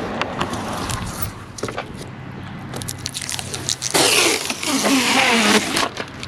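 Crackling and crinkling of plastic being handled, with scattered clicks, then a louder rustle from about four seconds in.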